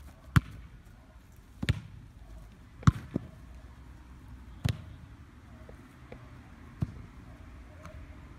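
A football being struck by foot and head: a string of sharp thuds at uneven gaps, about six in all, the loudest about three seconds in.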